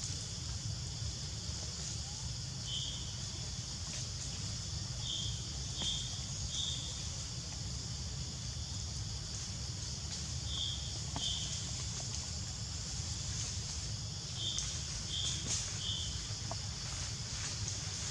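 Forest ambience: a steady high hiss and a low rumble, with short high chirps coming singly or in twos and threes every few seconds.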